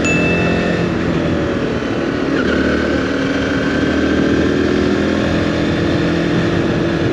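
Zontes motorcycle engine running under way, the engine note climbing as it accelerates about two to three seconds in, then holding steady.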